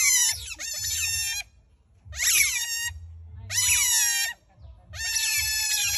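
Otters calling in a run of shrill, high-pitched squeals, about five calls each lasting under a second, with short gaps between them.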